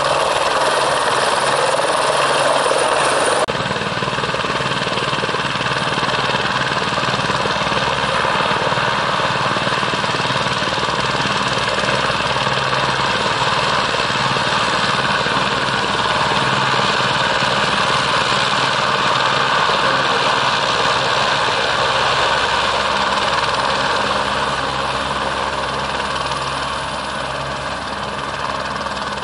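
Eurocopter AS350 B2 Esquilo helicopter running with its main rotor turning: steady turbine and rotor noise from its single Turbomeca Arriel turboshaft. The sound changes suddenly about three and a half seconds in and eases slightly near the end.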